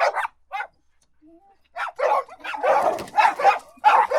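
Dog barking: two short barks at the start, a pause of about a second, then a rapid run of barks.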